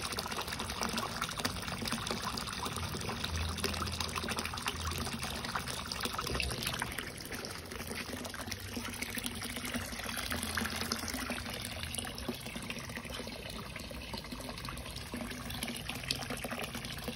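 A stream of water pouring from a pipe into a concrete koi pond, splashing steadily onto the surface.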